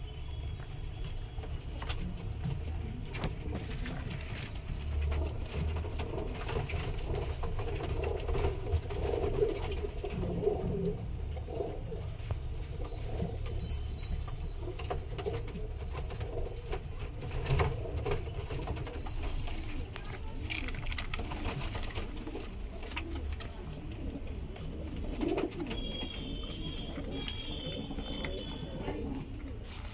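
Punjabi pigeons cooing: low, throaty warbling coos in several bouts.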